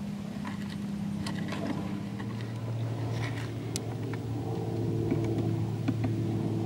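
Steady low engine-like hum made of a few held tones, with a deeper tone joining about two seconds in, and faint scattered small clicks over it.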